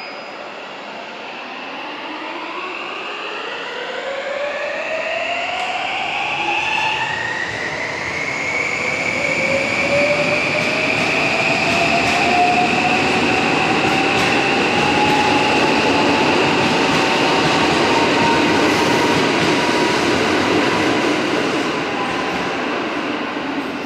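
JR 521 series electric train pulling away and accelerating, its IGBT-VVVF inverter and traction motors whining in several tones that climb in pitch in stages and then level off. Rolling noise from the wheels builds as the cars go by and eases slightly near the end as the train draws away.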